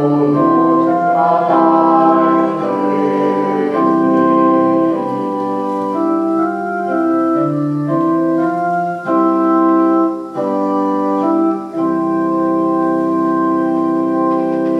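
Hymn played in an organ voice on a Roland electronic keyboard: full held chords that change every second or so and stop at the very end.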